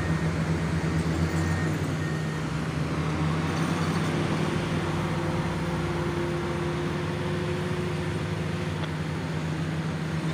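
Hydraulic excavator's diesel engine running steadily under the load of the lifted upper structure, with an alarm beeping intermittently for about the first two seconds.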